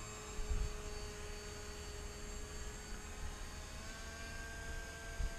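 Steady electric whine of the Albatros FPV plane's brushless motor and propeller, held at part throttle, its pitch stepping slightly higher about four seconds in. Wind rumbles on the microphone underneath.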